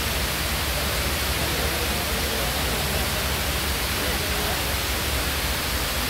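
Steady rushing of a tall indoor waterfall, water falling in thin streams down a multi-storey wall, with faint voices of people in the background.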